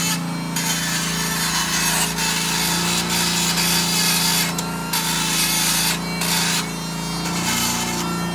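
Small handheld rotary tool grinding built-up rust and mud off a brake caliper bracket, the bit scraping on metal, with a steady motor hum beneath. The grinding breaks off briefly a few times.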